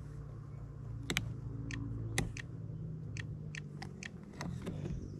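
A dozen or so sharp, irregular clicks and taps over a steady low hum.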